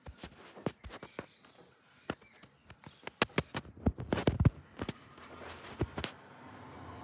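Irregular sharp taps and knocks close to the microphone, several a second and uneven in loudness, over a faint background.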